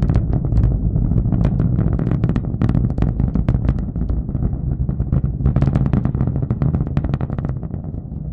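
Rocket engine's low rumbling roar with dense, irregular crackling, from a failed launch; it begins to fade near the end.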